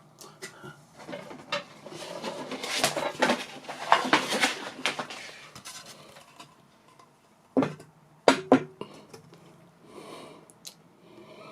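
Handling noise: a run of clattering clicks and rustles for several seconds, then a few sharp knocks about eight seconds in.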